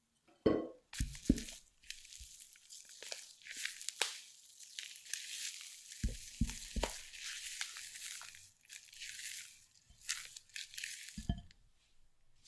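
Baking paper being crinkled and torn in a long crackling run, with a few soft knocks near the start, in the middle and near the end.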